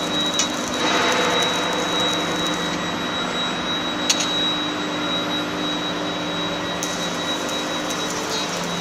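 Machinery of an induction hardening and tempering line running: a steady mechanical din with a thin high whine running through it. A sharp click comes about four seconds in.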